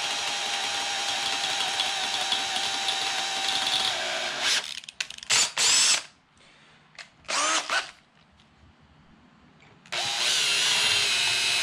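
Makita 18V cordless drill slowly drilling a small pilot hole into a stripped stainless steel screw. The motor runs steadily for about four seconds, then is worked in several short trigger bursts that spin up and wind down, pauses, and runs steadily again near the end.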